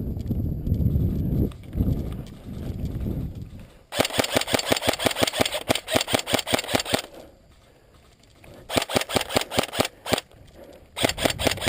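Airsoft electric rifle firing three rapid full-auto bursts: a long one of about three seconds, then two short ones. A low rumble of movement comes before the first burst.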